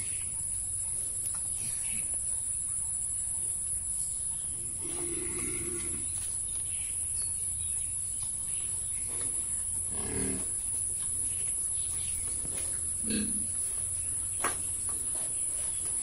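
Large White Yorkshire pigs grunting a few times, short and low, about five, ten and thirteen seconds in, over a steady low rumble.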